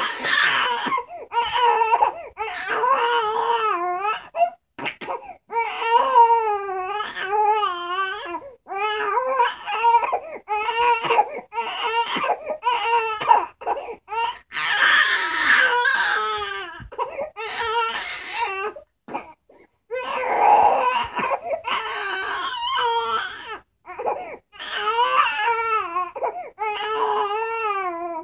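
Baby crying: a long run of short, wavering cries, one after another, with brief breaths between.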